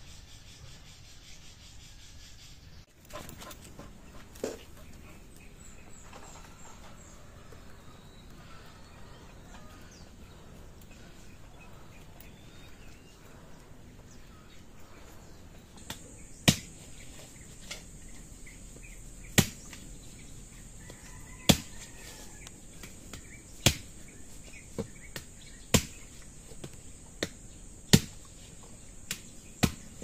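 A hand tool chopping into the ground, digging in sharp strikes about one every two seconds with lighter knocks between. The strikes start a little past halfway, over a steady high insect buzz.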